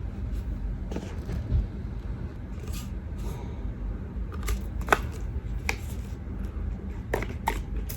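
Scattered sharp clicks and rustles of things being handled, the loudest about five seconds in, over a steady low rumble.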